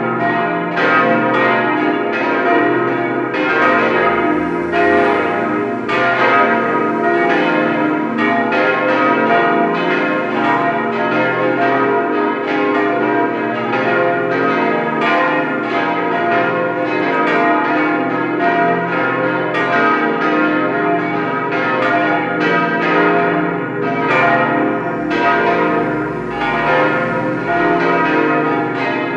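Peal of five cast-steel church bells by Bochumer Verein, tuned B-flat, C, E-flat, F and A-flat, swinging together. Their strikes overlap in a continuous, irregular stream of clangs with long ringing hum.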